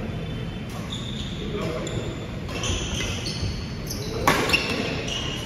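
Badminton rally in a large sports hall: short high squeaks of shoes on the court floor, and two sharp racket strikes on the shuttlecock in quick succession about four seconds in.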